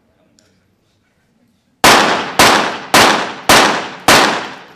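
A five-shot rapid-fire series from a .22 Short rapid fire pistol: five sharp shots about half a second apart, each ringing briefly before the next.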